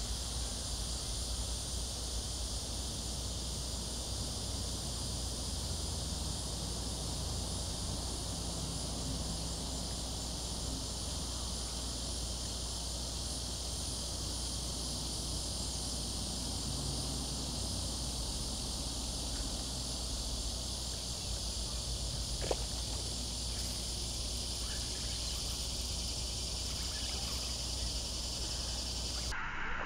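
A steady chorus of insects, an unbroken high-pitched trill, over a low steady rumble. One faint click comes about three-quarters of the way through.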